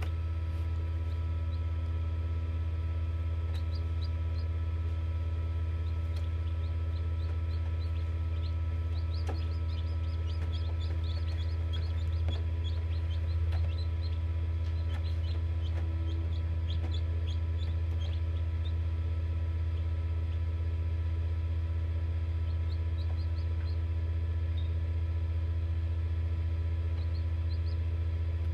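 Faint high peeping of newly hatching chicks inside an egg incubator, coming in spells of short chirps that drop in pitch, over a loud steady low hum of the incubator.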